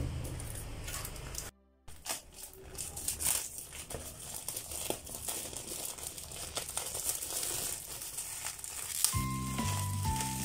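Clear plastic shrink wrap crinkling and rustling as it is cut with scissors and pulled off a spiral-bound sketchbook. Background music plays at first, breaks off in a short gap, and comes back near the end.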